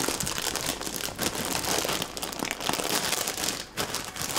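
Plastic snack-chip bag crinkling as it is handled and rummaged, an irregular run of crackles with a few short pauses.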